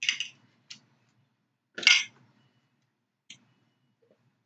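A metal spoon clinking against a small glass of dipping sauce: a few short, separate clinks, the loudest about two seconds in, with a faint ring after it.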